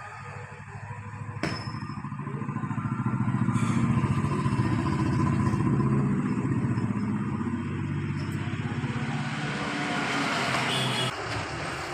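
A small petrol engine running steadily, growing louder over a few seconds and then dropping away sharply about eleven seconds in.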